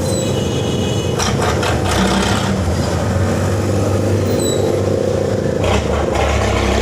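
A steady low engine rumble, like passing vehicles, with two brief louder rushes of noise, about a second in and near the end.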